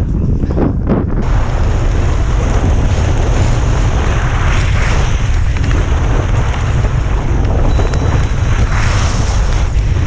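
Strong gusty wind buffeting the microphone: a loud, constant rumble with hiss that swells in gusts about four seconds in and again near the end.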